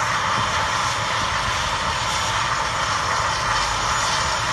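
Lincs & Notts air ambulance helicopter, an AgustaWestland AW169, with its turbine engines running on the ground: a steady, loud rushing hum that does not change in pitch or level.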